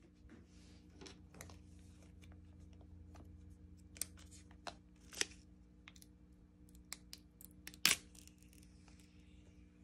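Paper pull tabs being torn off the seal of an Apple Pencil box, with short rustles and a few sharp cracks of paper and cardboard, the loudest near the end.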